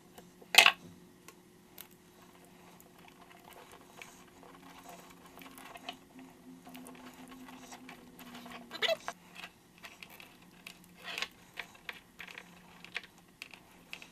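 Small clicks and rustles of hands working a cable bundle while wrapping self-bonding silicone tape around the ends of braided wire sleeving, with a sharper click about half a second in. A steady low hum runs underneath.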